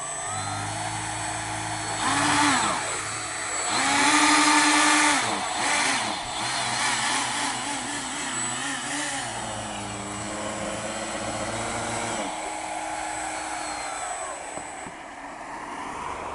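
RC model hovercraft (Griffon TDX2000 scale model) running its lift fan and ducted thrust propellers on dry ground: a steady whirring hum with a thin high whine above it. It revs up in pitch twice in the first five seconds, wavers, then winds down about twelve seconds in and fades away.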